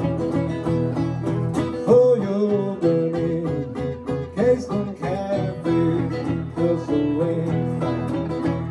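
Live acoustic blues played on a plucked-string instrument, most likely acoustic guitar, during an instrumental break in the song, with several bent notes in the middle.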